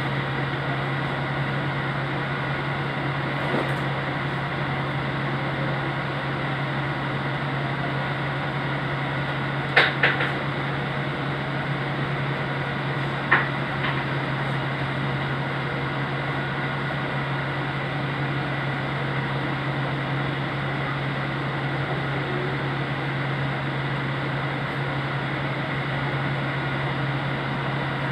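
Steady electrical hum with fan-like noise, broken by a few sharp clicks: two about ten seconds in and another near thirteen seconds.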